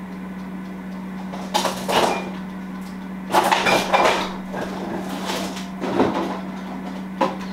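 Refrigerator door opened and shut, with knocking and rustling as a milk carton is taken out, in two main clusters about two and four seconds in, over a steady low hum.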